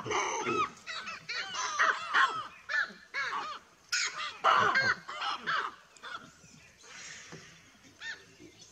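A troop of baboons giving loud, rapid alarm barks, many calls overlapping. The calling thins out to a few scattered barks about six seconds in.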